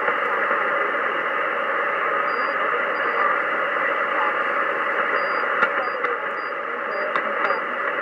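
Shortwave receiver in upper sideband hissing steadily with band noise, with no voice on the frequency between transmissions. A few faint clicks come in the second half.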